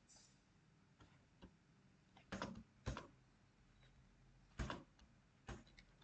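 Near silence broken by a few faint, sharp clicks of a computer mouse, the first about two seconds in.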